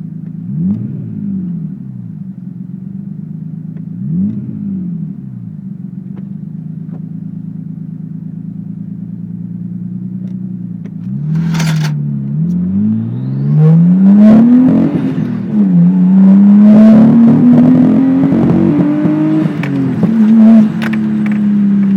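Nissan Skyline RB20DET turbocharged straight-six idling, blipped twice, then revved up hard and held climbing for several seconds before dropping back near the end. The note turns ragged and crackly at the top, a nasty miss that the owner puts down to either spark or the ECU holding it back.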